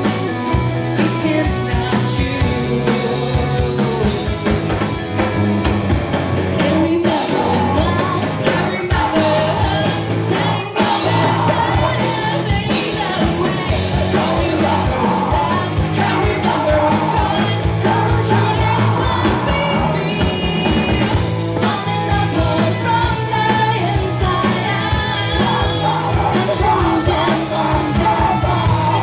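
Live rock band playing: electric guitars, bass guitar and drum kit, with a woman singing lead and some shouted vocals.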